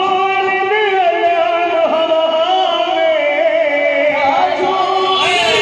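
A man singing a devotional song into a microphone, amplified. He holds a long note with wavering ornaments that slowly falls in pitch.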